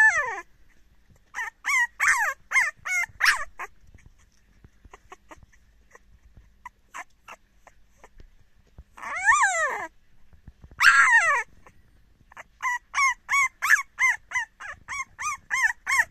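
French bulldog puppy yapping indignantly in high, squeaky little barks. A string of short yips comes first, then two longer drawn-out cries in the middle, then a quick run of yips about three a second near the end.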